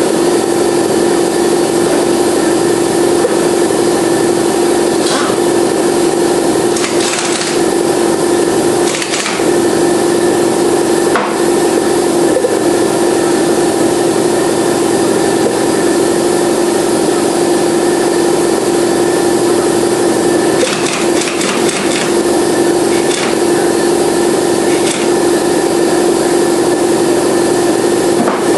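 A steady, loud droning hum at one pitch from running shop machinery. Short clinks and scrapes of hand tools on the motorcycle's engine mounts come at intervals, bunched around 5 to 11 seconds in and again around 21 to 25 seconds in.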